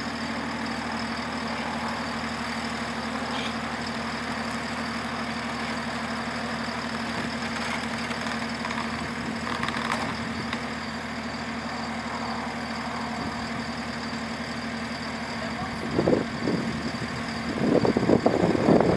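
Skid steer's diesel engine idling steadily while the loader lifts its load. A man's voice comes in near the end.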